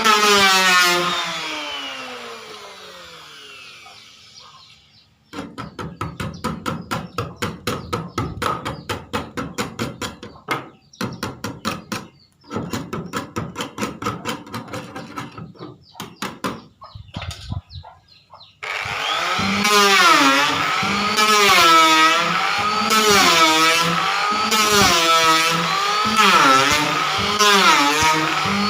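Electric wood planer's whine falling away as the motor spins down, then a fast run of clicks, about six a second, for roughly thirteen seconds. About two-thirds of the way in, the planer starts up again and runs loudly, its pitch dipping and recovering over and over as the blades cut the paint off the wood.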